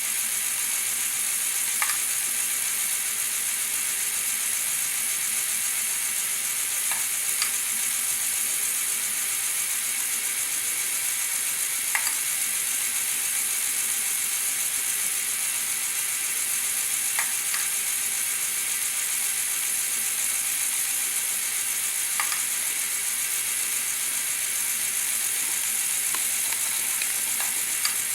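Motorized LEGO Technic mechanism running: a steady high whirr of small motors and plastic gears, with a sharp click about every five seconds.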